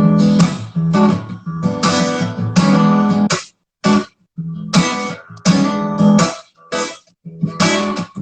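Acoustic guitar strumming chords as a song's instrumental intro. The phrases break off briefly a few times.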